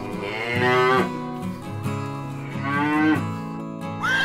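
Cow mooing twice, each call sliding down in pitch, over steady background music.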